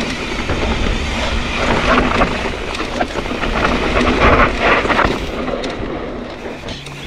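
Yeti SB130 mountain bike descending a dry dirt and rock trail: tyre noise on dirt and rock with the bike rattling over bumps, easing off somewhat near the end.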